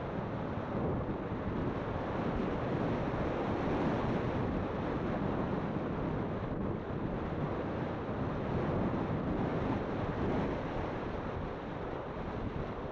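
Wind rushing over the microphone: a steady, even rumbling noise with no distinct events, as from air streaming past a camera on a moving mountain bike.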